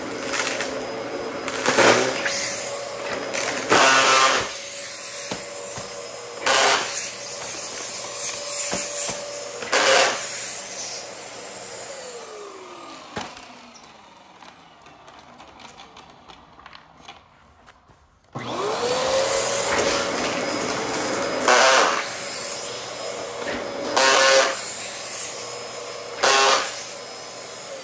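Dyson DC14 upright vacuum cleaner running over carpet, its motor whining steadily, with loud crunches every two to three seconds as the brushroll chews up cereal pieces. About halfway through, the motor winds down and stops, then starts again a few seconds later with a rising whine, and winds down once more at the end.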